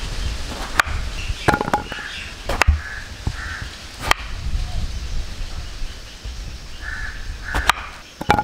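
Kitchen knife cutting through peeled bottle gourd and knocking on a wooden cutting board: about six sharp knocks at uneven intervals. A bird caws a few times in the background.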